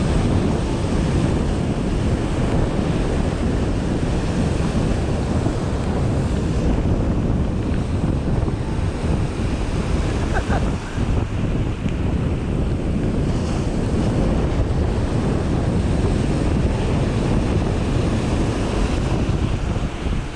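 Strong wind buffeting the microphone as a steady low rumble, with ocean surf washing on the beach beneath it.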